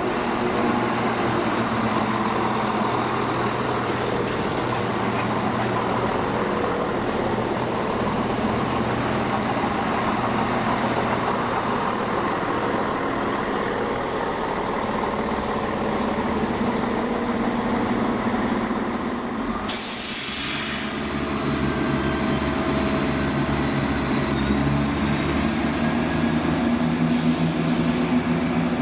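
Diesel passenger train engines running, a steady drone with several engine tones. About twenty seconds in there is a brief hiss, after which the engine note changes and grows a little louder.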